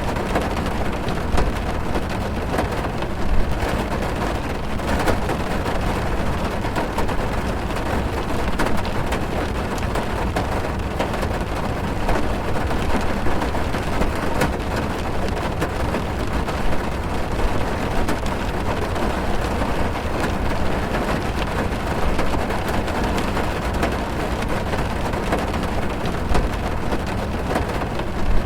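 Heavy rain pouring on a car's roof and windows, heard from inside the cabin: a steady, dense patter with a deep low rumble and many single drops ticking through it.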